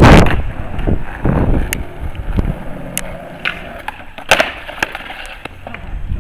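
Skateboard on asphalt: wheels rolling, with sharp clacks of the tail popping and the board and shoes landing during a flip trick, the loudest a little past four seconds in. A loud rush of noise at the very start.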